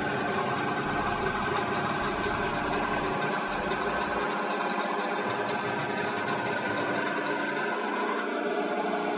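Face mill on a vertical milling machine cutting across a metal block: a steady machining drone with several constant tones as the spindle turns the cutter through the cut.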